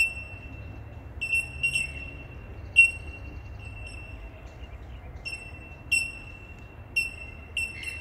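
Several bell miners giving their clear, high, bell-like 'tink' calls: sharp ringing pings at irregular intervals, one or two a second, overlapping into a continuous ringing tone.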